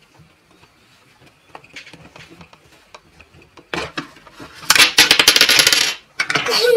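Plastic Kindi Kids toy fridge being handled and its doors swung open: light clicks and knocks, then about a second of loud, rapid plastic clattering and rattling.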